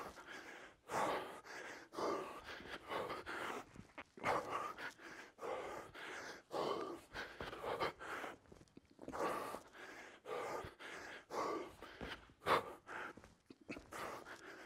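A man breathing hard from exertion: loud, noisy gasping breaths in quick succession, several a second.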